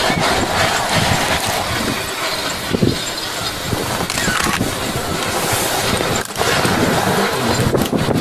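Small steam locomotive working under steam close by: a loud, rough rush of exhaust and escaping steam with irregular low surges.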